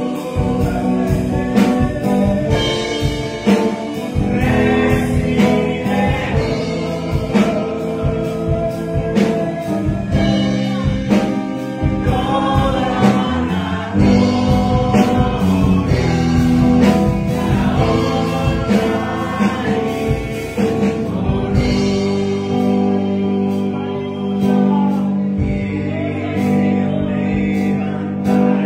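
A man singing a Spanish-language Christian worship song through a microphone, over accompaniment with a steady beat.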